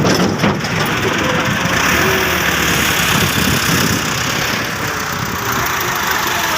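Doosan excavator's diesel engine running steadily, with a few sharp knocks near the start.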